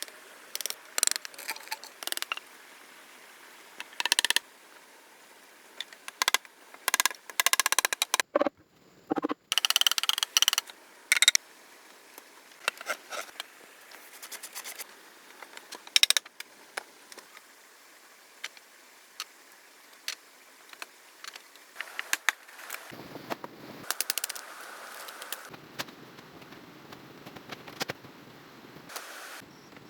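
Bamboo being chopped and split by hand: rapid runs of sharp knocks and cracks, in short clips that cut abruptly one after another.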